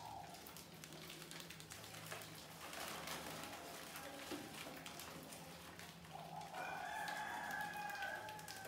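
A rooster crowing once, one long call starting about six and a half seconds in, over light scattered clicking and scratching from rats clambering on a plastic bucket.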